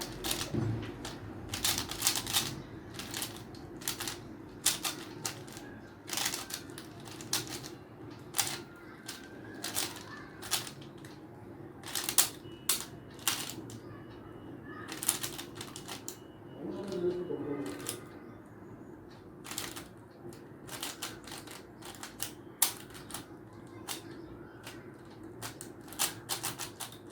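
Rubik's cube being turned rapidly by hand during a solve: quick, irregular plastic clicks and clacks as its layers snap round, in clusters with short pauses between.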